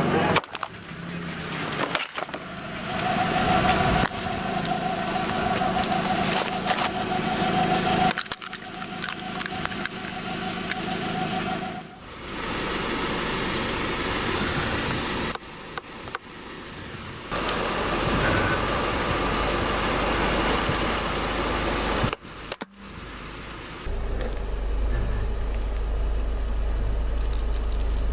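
A series of short clips of a car tyre rolling over objects and crushing them, with crunching and cracking over a running car engine. The sound changes abruptly every few seconds as one clip cuts to the next.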